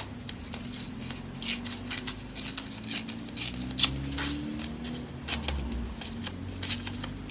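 Magazine paper being torn by hand and handled, a string of short irregular rips and crackles.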